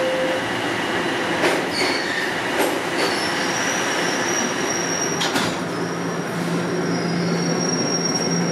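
TTC subway train stopped at a station: a train runs past on the opposite track, then the car's doors slide shut with a few knocks, and the car starts moving off with a steady high electric whine.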